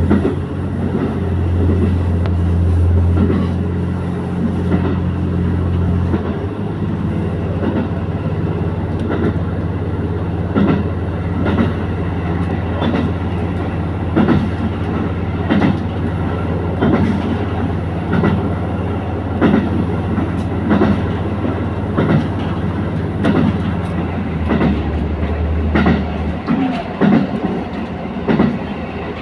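A diesel train running along the line: a steady low engine drone that shifts in pitch about six seconds in and again near the end, with rail-joint clickety-clack every second or so.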